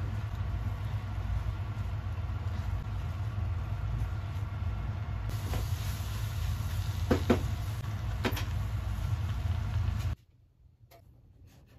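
A steady low mechanical rumble with a hiss over it, from the stovetop while the saucepan of apple pieces is on the gas hob. Two light clicks come about seven and eight seconds in, and the rumble cuts off abruptly near the end.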